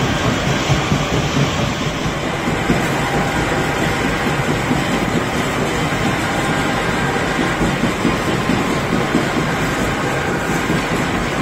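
Grape-processing machinery in a winery running steadily: a stainless-steel destemmer with its feed auger and a conveyor belt make a continuous mechanical noise.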